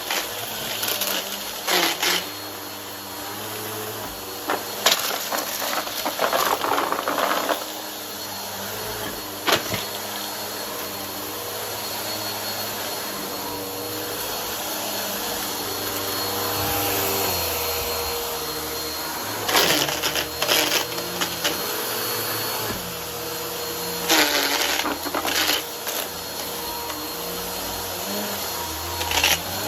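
Vacuum cleaner with a brushroll running steadily, with bursts of crunching and crackling as debris is sucked up.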